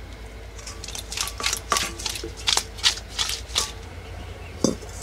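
Metal cookware being handled: an irregular run of light clicks and clinks, then one sharper knock near the end as a karai is set on the clay stove.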